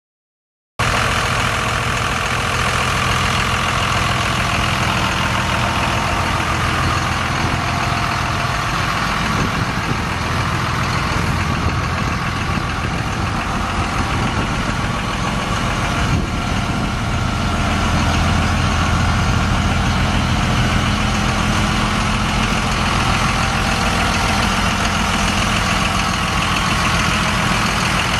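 Dodge Ram 2500 pickup's Cummins 5.9-litre inline-six diesel idling steadily. It cuts in abruptly about a second in and grows a little louder in the last third.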